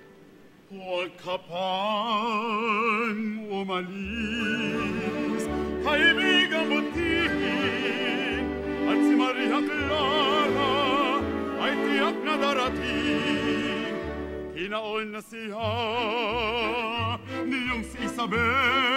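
Male opera voices singing with strong vibrato over orchestral accompaniment, the first phrase entering just after a brief hush at the start. Low bass notes join the orchestra about four seconds in and move in steps beneath the singing.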